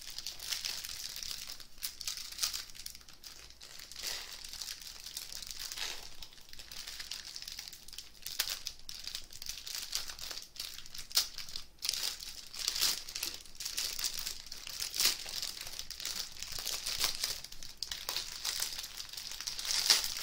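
Clear plastic packaging crinkling and crackling as hands twist and pull at a tightly sealed bag of diamond painting drills that is hard to get open. Constant sharp crackles, the loudest just before the end.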